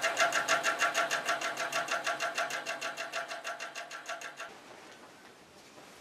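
Industrial sewing machine stitching fabric, a fast, even mechanical clatter of needle strokes that fades and stops about four and a half seconds in.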